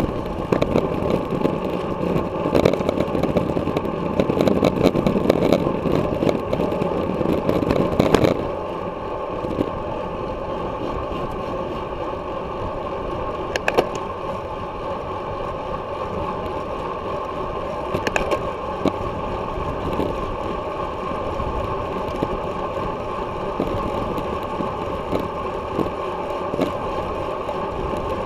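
Wind rushing over a bike-mounted camera's microphone, with road noise, while riding at race speed; rougher and louder for the first eight seconds or so, then steadier and quieter, with a couple of sharp clicks partway through.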